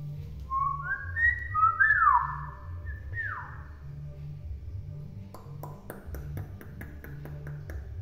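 Common hill myna whistling: a few short stepped notes, then two loud falling whistles. A run of sharp clicks follows from a little past halfway.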